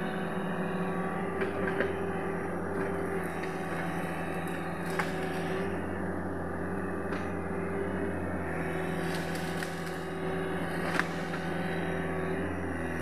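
Sany SY75C excavator's diesel engine running steadily at working revs, with a few short sharp cracks over it.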